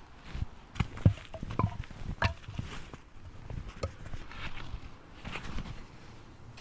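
Irregular knocks and crunches of cut wood being handled and set down in snow. A few of the knocks give a short hollow ring.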